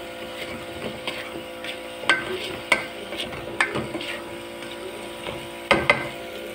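Chopped vegetables and spices sizzling in oil in an aluminium pot as they are stirred with a spoon, which knocks sharply against the pot several times, twice in quick succession near the end.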